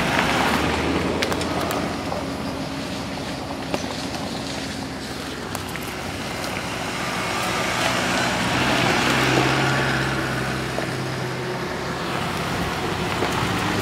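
Suzuki Jimny 4x4s driving slowly past on a dirt track, their engines running with a steady low hum over the noise of tyres on the dirt. The engine sound swells as a vehicle passes close about nine seconds in.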